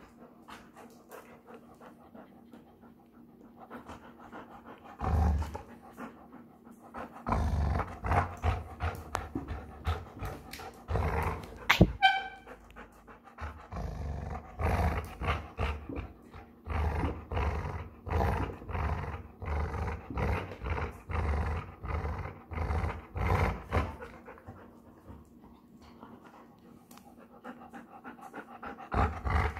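Dog play-growling in rhythmic pulses, a few a second, while tugging on a plush toy. It starts about five seconds in and eases off near the end, with one sharp, louder sound near the middle.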